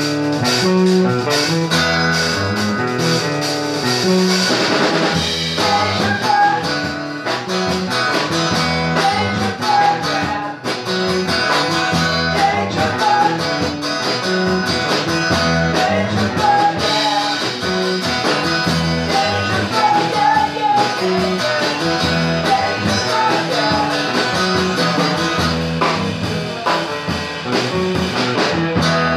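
Rock band playing live in a rehearsal room: drum kit, electric bass repeating a riff, and electric and acoustic guitars together.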